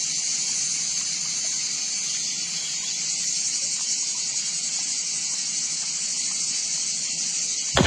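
Steady high-pitched hiss of outdoor background noise with a faint low hum beneath, unchanging throughout.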